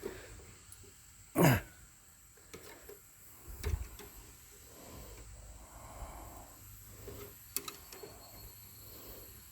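Hands working at a CPU and heatsink on an old computer motherboard: handling clicks and knocks, a short sharp squeak that falls quickly in pitch about a second and a half in, a thump a little later, and heavy breathing.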